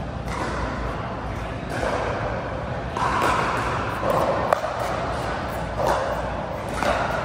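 Pickleball paddles hitting a plastic pickleball: sharp pops at irregular intervals from this and neighbouring courts, the loudest about four and a half seconds in, over a steady babble of voices echoing in a large hall.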